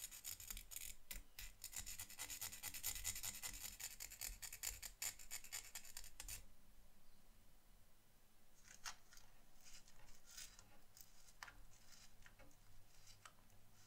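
A needle file scrapes rapidly back and forth on the toothed edge of a tiny photo-etched metal brake disc for about six seconds. A couple of seconds later come separate short scratches as the disc is rubbed on a 600-grit sanding sponge, to dull its finish to a worn look.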